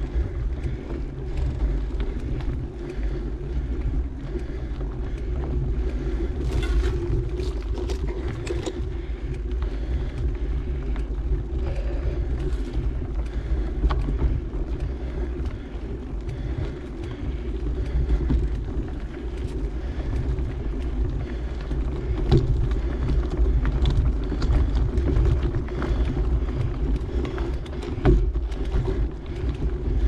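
Mountain bike ride on a dirt trail: wind buffeting the microphone and tyres rolling over the ground make a steady low rumble, with scattered clicks and rattles from the bike over rough spots.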